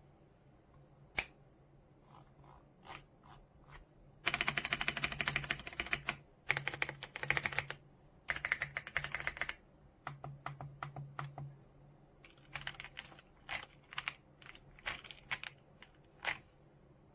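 Typing on an AJAZZ AK820 75% mechanical keyboard. A few single keystrokes come first, then several dense, fast runs of key clatter through the middle, then slower separate key presses near the end.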